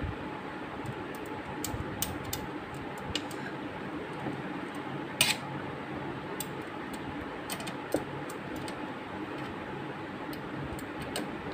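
Scattered light clicks and ticks of small screws and a screwdriver being handled against a DVR's sheet-metal case, with one sharper click about five seconds in, over a steady background hum.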